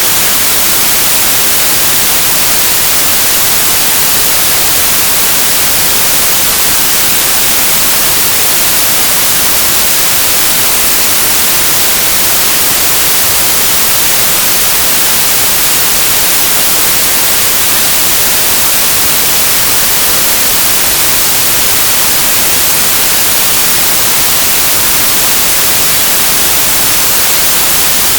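Loud, steady electronic static: an even white-noise hiss, brightest in the high end, with nothing else heard over it.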